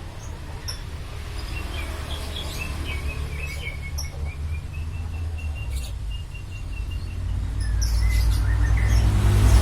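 Lovebirds chirping: a quick run of short, high chirps repeating several times a second, over a low rumble that grows louder near the end.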